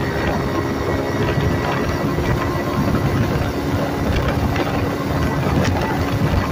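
Phatmoto motorized-bicycle engine running steadily while the bike is ridden, with wind on the microphone and scattered light rattling ticks.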